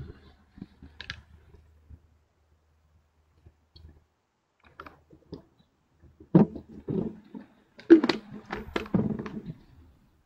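Irregular clicks and taps, sparse at first and thickest from about six to nine and a half seconds in, over a faint low hum.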